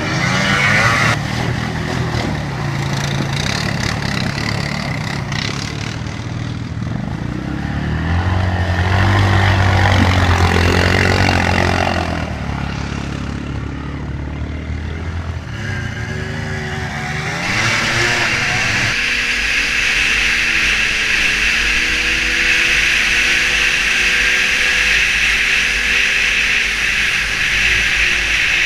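Sport quad ATV engine revving hard as it plows through creek water and mud. About two-thirds in, this gives way to a snowmobile engine running steadily at speed.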